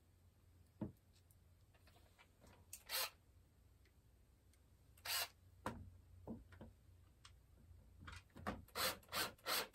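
Cordless drill/driver driving a screw into the treadmill console frame: a click and a few separate scrapes, then from about eight seconds in a regular run of rasping strokes about three a second.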